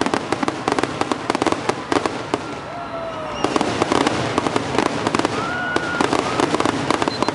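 Fireworks display: many aerial shells bursting with rapid, dense crackling and popping, easing off briefly about three seconds in before picking up again.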